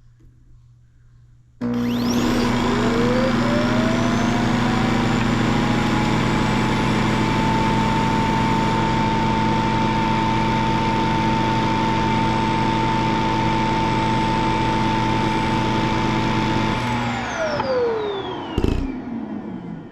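Self-emptying dock of a robot vacuum running its suction motor to pull the dirt out of the docked robot's bin. The motor starts abruptly about a second and a half in and its whine rises to a steady high pitch. It runs for about fifteen seconds, then winds down, followed by a single knock.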